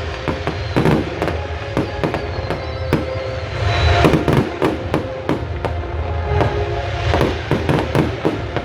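Aerial fireworks going off in rapid, irregular succession: many sharp bangs and crackles over a continuous low rumble, with music playing alongside.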